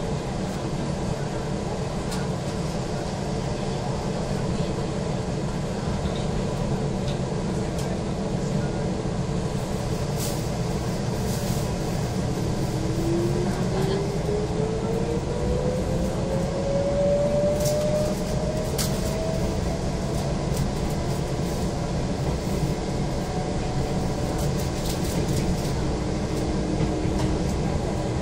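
Inside an Izukyu 2100-series electric train on the move: a steady low running rumble. About halfway through, a motor whine rises smoothly in pitch over several seconds as the train gathers speed, then levels off and fades, with a few light clicks.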